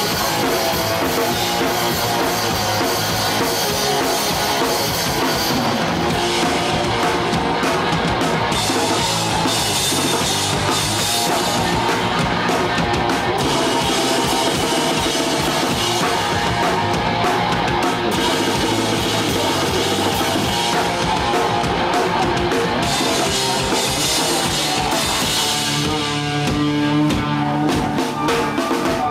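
Hardcore punk band playing live: distorted electric guitar, bass and drum kit at a loud, steady level, heard through a camcorder's built-in microphone.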